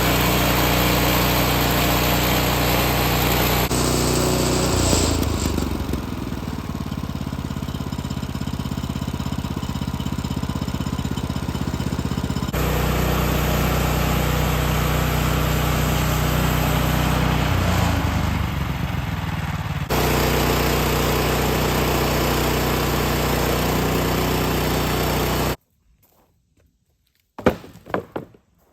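Band sawmill's engine running steadily, its pitch dropping about five seconds in. It cuts off abruptly near the end, followed by a couple of sharp knocks.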